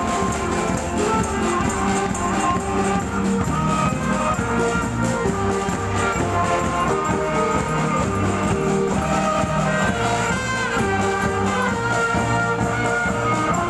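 Women's brass marching band playing a tune: held brass notes over a steady beat of percussion.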